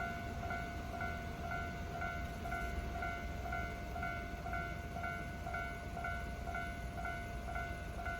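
Japanese railway level crossing warning bell ringing steadily, about two strikes a second, over a low rumble.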